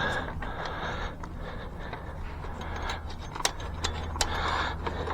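Faint scraping and a few light metallic clicks as a washer and nut are fitted by hand onto a dirt bike's rear axle, over a steady low hum.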